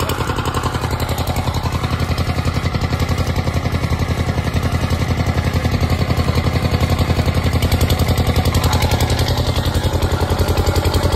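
Diesel generator engine running steadily, with a rapid, even thumping beat.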